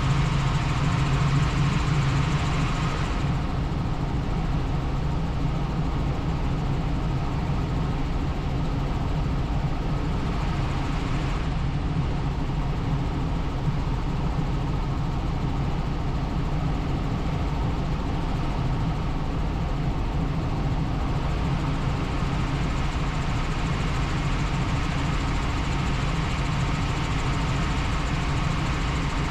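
Helicopter in flight: a steady, unbroken drone of engine and rotor, with the higher hiss easing slightly about three seconds in.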